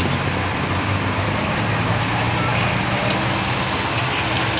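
Steady low engine hum from a large engine running nearby, under a constant noisy background.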